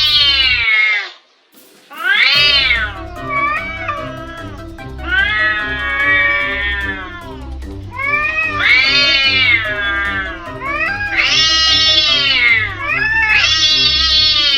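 Domestic cats yowling in long, drawn-out howls that rise and fall, about seven calls one after another, one held for two seconds or so. This is the caterwauling of cats in a standoff, threatening to fight.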